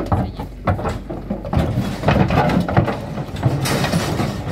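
Cattle hooves clattering and thudding on a steel checker-plate floor, with metal pen gates rattling as the cows shuffle through: a dense run of irregular knocks, busiest in the second half.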